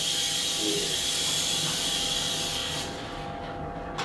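Steady hiss in a small room. It fades in the upper range about three seconds in, and a single sharp click comes near the end.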